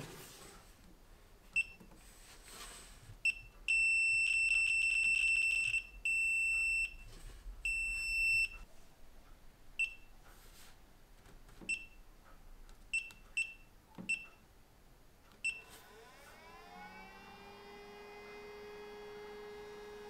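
Sovol 3D filament dryer's control panel beeping as its buttons are pressed: three longer beeps at one high pitch, then a string of short single beeps. Near the end its fan motor spins up with a rising whine and settles into a steady hum.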